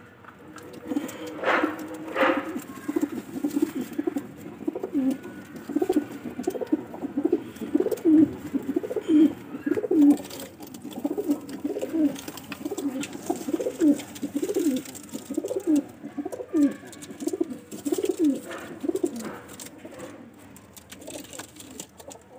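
Ambarsari pigeons cooing, a long run of low repeated coos, each a short rise and fall, coming about one or two a second. Two brief sharper sounds come near the start, and the cooing stops a few seconds before the end.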